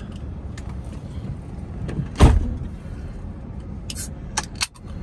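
Chevy 1500 pickup idling, heard from inside the stopped cab as a steady low rumble. There is one loud thump about two seconds in and a few light clicks near the end.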